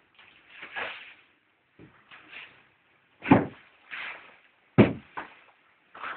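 A horse rolling in deep straw bedding: bursts of straw rustling, with two heavy thumps as its body drops and turns, about three seconds in and again a second and a half later.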